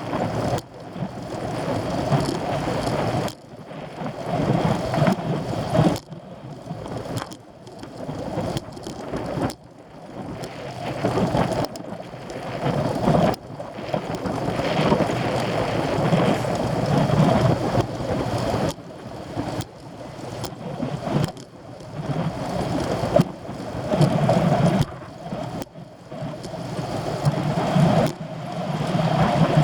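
Wind buffeting the microphone of a camera riding along on a racing bicycle, with road rumble underneath. The noise surges and drops off sharply every few seconds.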